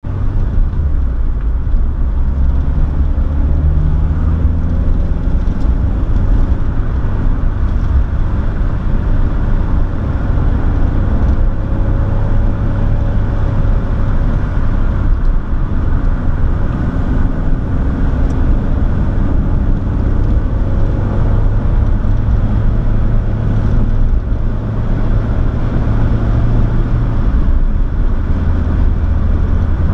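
Car engine and road noise heard from inside the cabin while driving, a steady low rumble with the engine note rising and falling as the speed changes.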